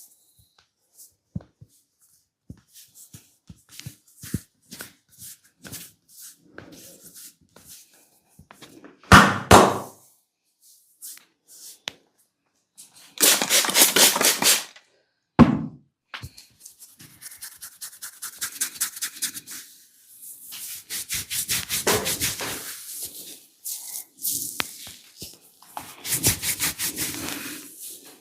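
Sounds of a massage and cracking session with hands working on a person: scattered sharp clicks and cracks at first, heavy thuds about nine and fifteen seconds in, and a loud spell of fast strokes about thirteen seconds in. From about sixteen seconds on, fast rhythmic strokes on skin and hair run on without a break.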